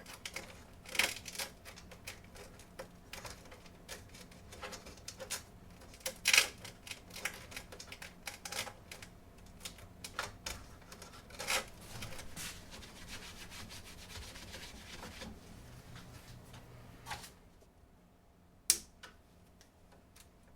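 Irregular clicks, taps and rubbing of small parts and packaging being handled, with one sharp loudest click about six seconds in; it thins out near the end to a single sharp click.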